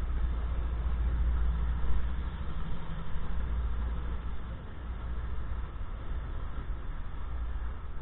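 MBTA commuter train's MPI HSP46 diesel locomotive running with a steady low rumble as it pulls away, easing slightly after about four seconds.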